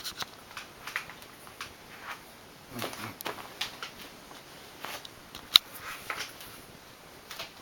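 Scattered small clicks and soft rustles, irregular and close, with one sharp click about five and a half seconds in.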